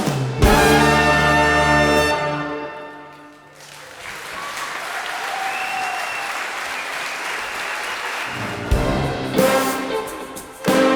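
Orchestra with brass holding a chord that dies away, then a few seconds of steady noise, then brass-led ensemble music starting again near the end.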